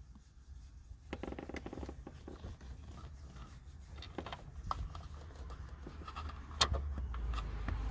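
Faint handling noise of fingers rubbing and scratching on plastic and leather console trim while a Torx trim screw is fitted by hand, with a few small clicks.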